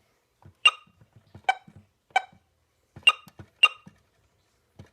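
First Alert WX-67 weather radio giving five short electronic button beeps as its buttons are pressed, each beep preceded by a faint click of the key.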